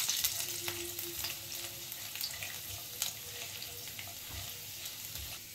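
Garlic cloves and whole spices sizzling in hot oil in a non-stick kadhai, with scattered small pops, as a spatula stirs them around the pan.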